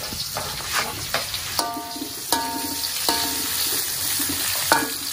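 Chopped chillies, shallots and tomato sizzling in hot oil with fried anchovies in a metal wok as they are scraped in and stirred with a metal spatula. The spatula clinks on the metal with a short ringing note four times.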